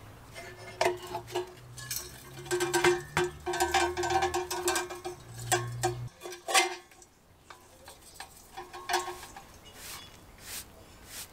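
Metal pick scraping and clinking against the rusty burner of a Dietz kerosene lantern, with a light metallic ring. After about six seconds it goes quieter, and near the end a brush sweeps loosened rust flakes across a textured floor mat in a few short strokes.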